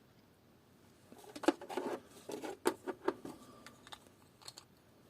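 Small hard parts being handled on a work surface, an A23 battery being fitted to a car key-fob remote for testing: a cluster of quick clicks and rattles for about two seconds, then a few light separate clicks near the end.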